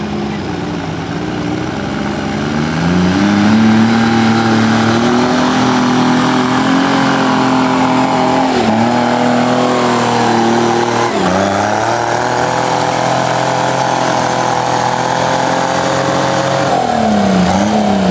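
Diesel garden tractor engine running hard under load while pulling a weight-transfer sled. It revs up about three seconds in and holds a steady high pitch, sags sharply twice midway, and wavers down near the end.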